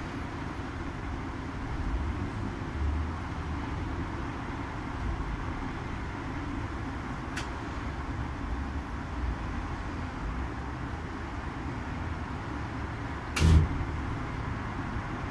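Kis Wash commercial tumble dryer running, its drum tumbling a load of towels and dressing gowns: a steady rumble with soft, irregular thuds as the load falls. A faint click comes about seven seconds in and a louder sharp knock near the end.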